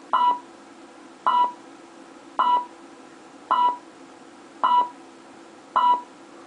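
Alarm keypad beeping, six short identical beeps about a second apart, a steady countdown after it has been armed in stay mode. It is the simulated keypad of an online alarm demo, heard through the computer, with a faint steady hum underneath.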